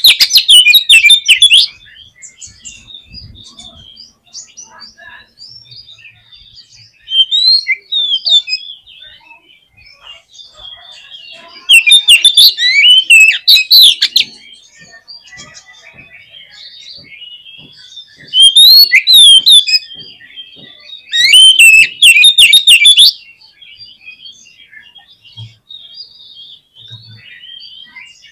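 Oriental magpie-robin (kacer) singing: five loud bursts of rapid, varied whistles and chattering notes, each one to three seconds long, with quieter twittering in the gaps between.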